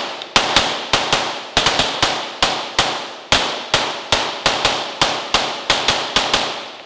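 Handgun firing a long run of rapid shots, about two dozen, roughly three to four a second in quick pairs and triples, each crack followed by a short ringing tail: a cadence drill on a paper target.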